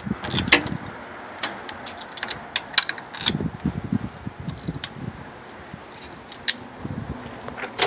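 Irregular metallic clicks and clinks of a socket wrench and extension working the spark plugs out of a V6 four-stroke outboard's cylinder head.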